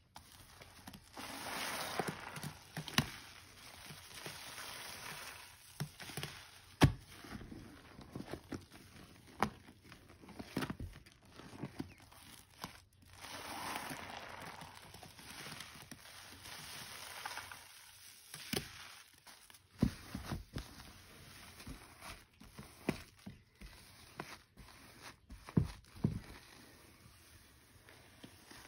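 Soaked, soapy sponges squeezed by hand over and over, squelching and crackling with suds, with a few sharp taps in between.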